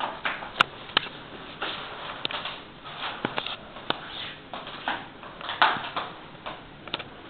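A flexible whiteboard sheet being pressed and rubbed flat onto a wall by hand: irregular short rubbing swishes and sheet rustle, broken by sharp taps and clicks.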